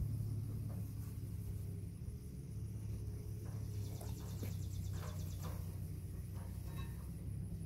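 Rag wiping down a painted car fender with cleaner, faint rubbing strokes, over a steady low hum. Insects trill in pulses in the background, loudest about four to five seconds in.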